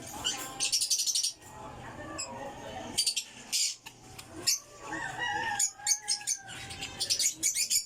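African lovebirds calling: shrill, rapid chattering bursts near the start and again near the end, with a few shorter calls in between.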